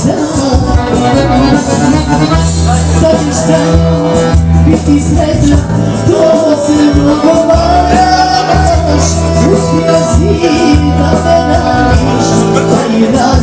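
Live Bosnian folk song played through a PA: a button accordion and a steady bass backing, with a woman singing into a microphone.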